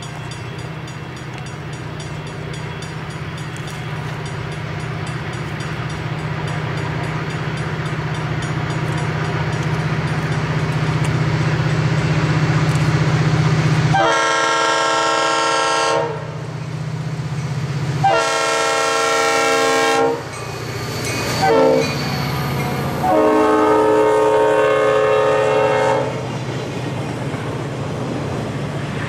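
Diesel freight locomotives approaching, their engine drone growing steadily louder. About halfway through, the lead locomotive's multi-chime air horn sounds long, long, short, long, the standard grade-crossing signal. Near the end, the train's flatcars roll past with the clickety-clack of wheels on the rails.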